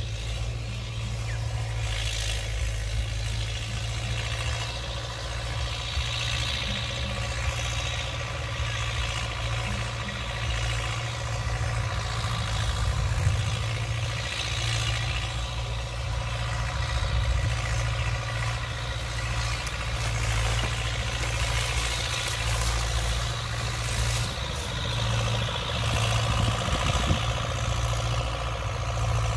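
Old Belarus MTZ tractor's diesel engine running steadily under load as the tractor tills the soil.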